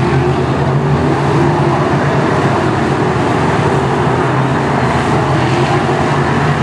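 Several BriSCA F1 stock cars' big V8 engines running together at low speed, a steady low engine drone with no revving up or down.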